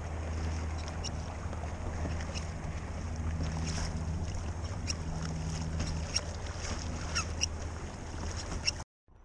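Water lapping and splashing against a kayak's hull, with wind on the microphone and a low steady hum underneath. The sound drops out briefly near the end.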